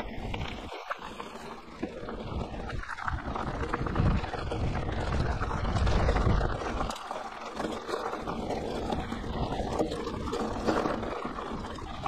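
Wind buffeting the microphone of a camera on a moving mountain bike, with the tyres rolling and crunching over a gravel road. The rumble swells in gusts around the middle.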